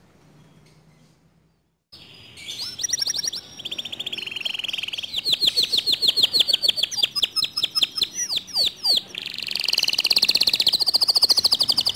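Domestic canary singing a loud, fast song of rapid repeated chirps, quick sweeping notes and a dense rolling trill, starting about two seconds in after a near-silent gap. It is the vigorous full song that canary keepers play to provoke other canaries into singing.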